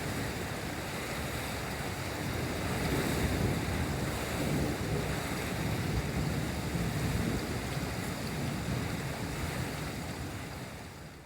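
Rain falling steadily during a thunderstorm, with low rolling thunder swelling through the middle. The sound fades out near the end.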